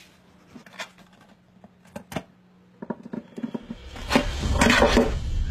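Soft clicks and scrapes of a wooden box lid being handled and lifted off. About three and a half seconds in, low dramatic music swells in, and near the end comes a loud gasping breath.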